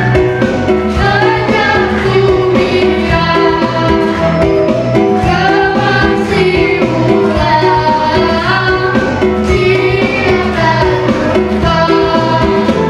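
A girl singing a melody into a microphone over backing music with a steady beat.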